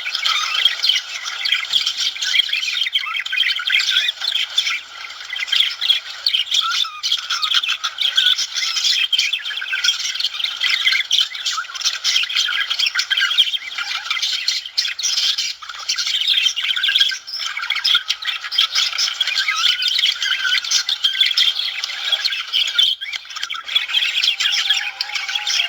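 Budgerigars chirping and warbling continuously: a dense stream of fast, high chirps and chattering squawks from several birds at once.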